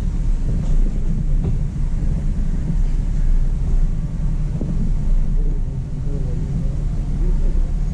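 Hummer H2's V8 engine running at low speed while the truck crawls over a rocky dirt trail, a steady low rumble.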